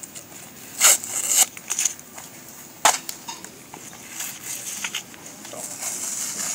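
Paper packaging and bundled socks being torn open and rustled by hand: a few loud rips or crinkles about a second in, a sharp snap about three seconds in, then softer rustling of paper and knit fabric.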